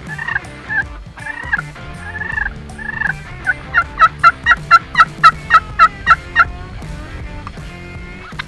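Male wild turkey calling: a few drawn, arching calls, then from about three and a half seconds in a loud, rapid run of about a dozen notes, some four a second.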